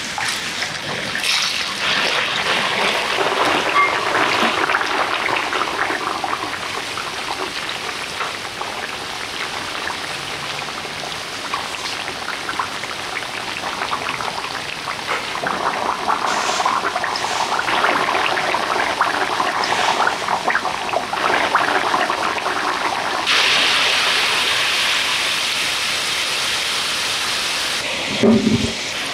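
Potato sticks sizzling and crackling in hot oil in a frying pan, the sizzle starting sharply as they go into the oil, with a dense spatter of fine pops. Near the end comes a brief low knock.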